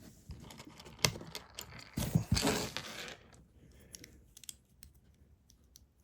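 Small plastic clicks and rattles of LEGO pieces being handled and pressed together, busiest for about a second partway through, with a brief rustle.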